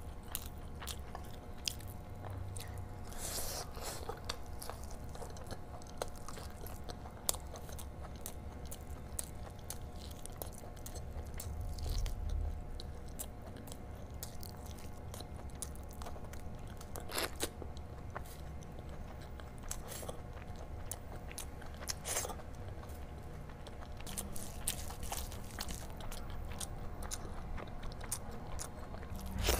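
Close-miked eating: a person chewing and biting through mouthfuls of rice and curry eaten by hand, with many short sharp clicks as she chews.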